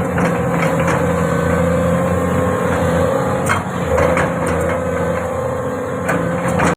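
Hyundai 450 hydraulic excavator's diesel engine running steadily with a steady whine, and a few knocks, most clearly a little past the middle.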